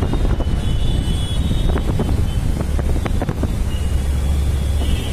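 Diesel locomotive approaching while hauling passenger coaches, its engine a heavy low rumble, with wind buffeting the microphone and a few sharp clicks about two to three seconds in.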